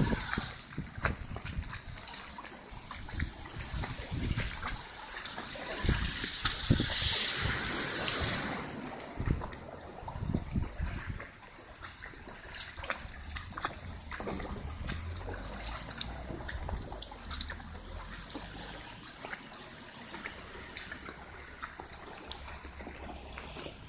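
Typhoon rain splashing and dripping, with water trickling. Gusts of wind buffet the microphone during the first several seconds, then ease off.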